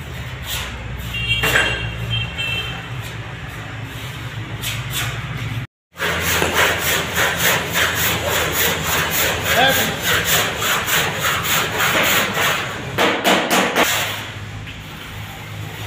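Sandpaper rubbed by hand over body filler on a car's front wing: quick back-and-forth scraping strokes, about three to four a second. The sound cuts out briefly about six seconds in, and the strokes are louder after that.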